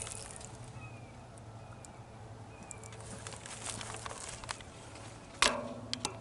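Outdoor ambience of faint short bird chirps, scattered clicks and rustles, and a faint steady low hum. A single sharp knock about five and a half seconds in is the loudest sound.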